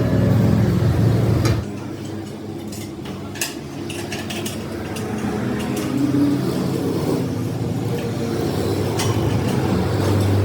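Workshop machinery running with a low hum that drops off about a second and a half in and slowly builds back, with light metallic clinks and taps from metal parts being handled.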